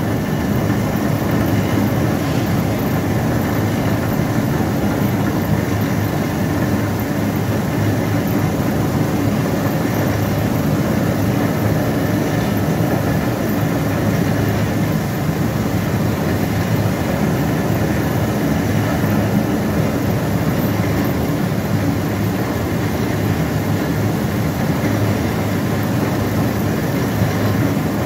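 Industrial brush-roller potato washing machine running steadily: the even mechanical noise of its drive and rotating soft brush rollers, with potatoes tumbling over them.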